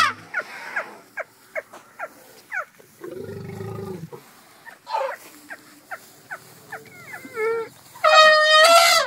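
Asian elephants calling: a loud trumpet just at the start and another lasting about a second near the end, with a string of short, high, falling squeaks and a lower rumbling call about three seconds in.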